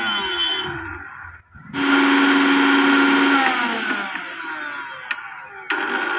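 Mixer grinder motor running on test after a body replacement, a loud whirring hiss with a steady hum. It dips briefly, comes back loudest about two seconds in, then slowly fades.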